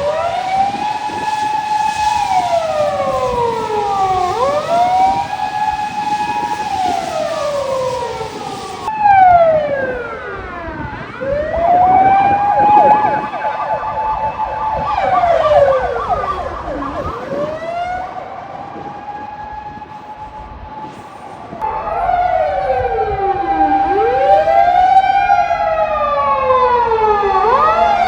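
Japanese emergency-vehicle sirens wailing: each cycle rises, holds a steady pitch, then falls, over and over. The sound changes abruptly twice as one siren gives way to another. From about two-thirds of the way in, several sirens overlap out of step.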